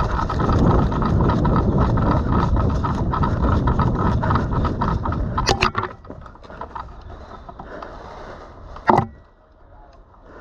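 Rumbling movement and wind noise on a body-worn action camera as a player rushes forward, with rapid rattling clicks of gear, dropping away after about six seconds. A sharp knock comes about nine seconds in.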